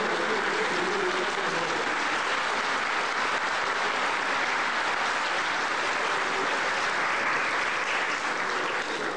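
A large audience applauding steadily. The clapping starts to die down right at the end.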